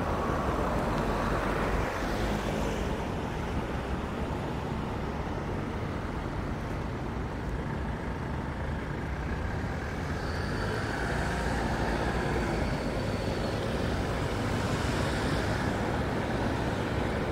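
Street traffic: cars and other vehicles driving past through an intersection, a steady roadway noise.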